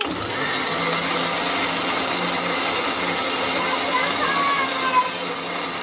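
Philips mixer grinder's motor switched on and running steadily at full speed, its blades grinding roasted tomato, garlic and coriander into a chutney paste in a steel jar.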